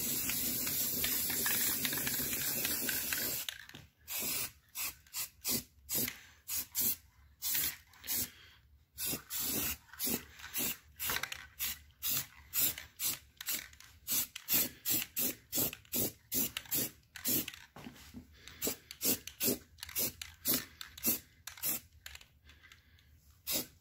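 Rust-Oleum aerosol spray paint can spraying: one continuous hiss for the first three to four seconds, then many short bursts of spray, one or two a second.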